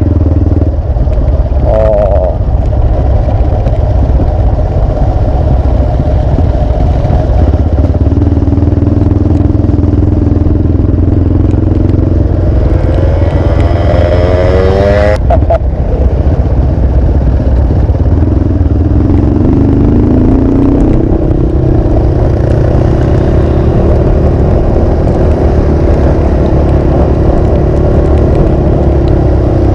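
Motorcycle engine running under way with a heavy low rumble. The revs climb in a rising whine from about 12 to 15 seconds in, then drop off suddenly, and the engine settles into a steady run again in the second half.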